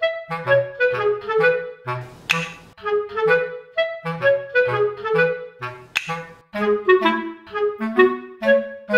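Background music: a bouncy tune of short notes over a plodding bass line, with a sharp click about six seconds in.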